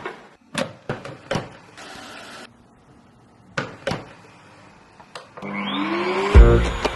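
Sharp plastic clicks and knocks, then the DX2508 carpet-and-upholstery washing vacuum's motor starting up with a rising whine about five and a half seconds in. Loud music with a beat comes in near the end.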